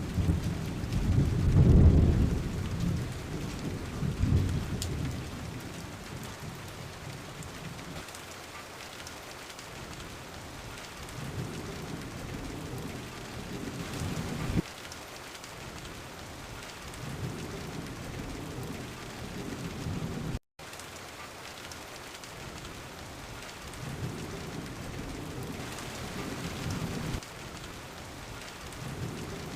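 Steady rain falling, with rolling thunder that is loudest in the first few seconds and then fades. Later come several weaker rumbles, some of which stop abruptly, and about twenty seconds in there is a brief gap in the sound.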